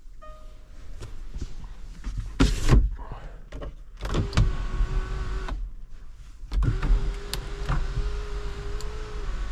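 A loud clunk about two and a half seconds in, then a small electric motor whines steadily for about a second and a half, stops, and runs again for about two and a half seconds.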